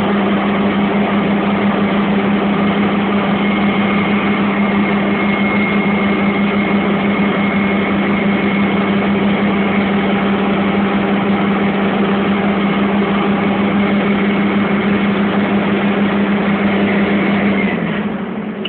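Ursus 1014 tractor's six-cylinder turbo diesel engine running steadily under load, heard from inside the cab while pulling a 3 m cultivator. Near the end the engine note drops and gets quieter.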